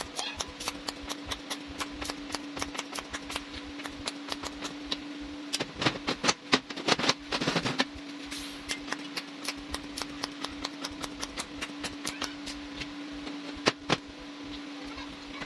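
Stainless steel center stand parts clinking and knocking on a steel workbench as they are handled and positioned, with a flurry of louder knocks about six to eight seconds in, over a steady hum.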